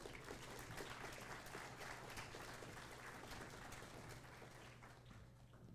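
Audience applauding faintly, the clapping dying away near the end.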